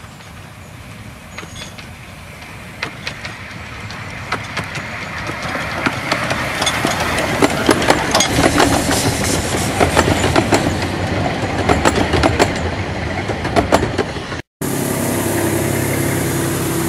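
Narrow-gauge steam train approaching and passing close by: the sound builds as it nears, with rattling and sharp clicks of the coach wheels over the rail joints as the carriages go past. After an abrupt break near the end, a steadier even hum.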